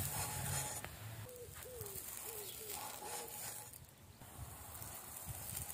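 A pigeon cooing faintly: a run of five or six short notes, each rising and falling, between about one and three seconds in.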